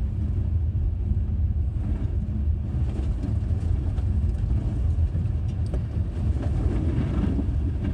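Steady low rumble of engine and road noise heard inside the cabin of a 2017 Honda Accord V6 as it drives along.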